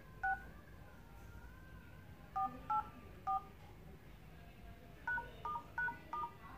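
Touch-tone (DTMF) key beeps from a Redmi 4 smartphone's dialer as the code *#*#6484#*#* is keyed in, each press a short two-note beep. There is one beep, then three in a quick run about two seconds in (4, 8, 4), then four more near the end (#, *, #, *).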